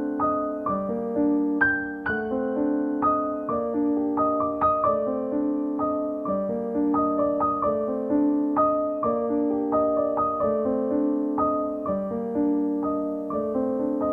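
Background piano music: a steady, gentle run of single notes and chords.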